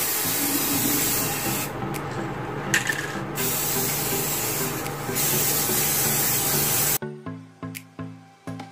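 Aerosol spray-paint can hissing in four long bursts with short breaks between them, over background music. The spraying cuts off suddenly about seven seconds in, leaving only the music.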